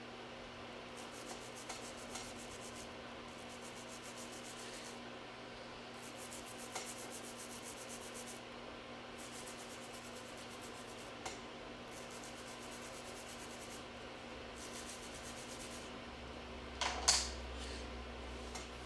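A nail file rubbing across fingernails in quick back-and-forth strokes, in bouts of a couple of seconds with short pauses between. A brief clatter near the end is the loudest sound.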